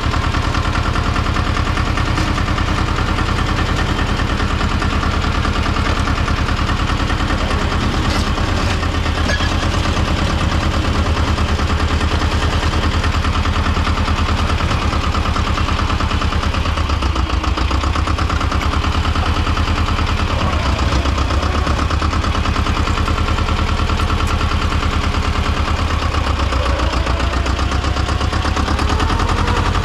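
Tomo Vinković TV-731 tractor's diesel engine running steadily with a fast chugging beat. The engine note dips and rises a few times in the second half.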